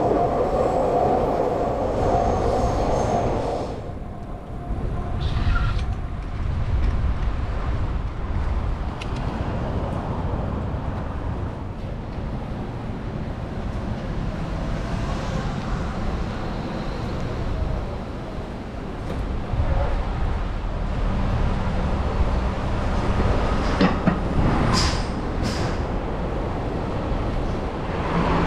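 Train running past with a steady rumble of wheels on rails. A steady tone cuts off about three or four seconds in, and a few brief high squeaks come near the end.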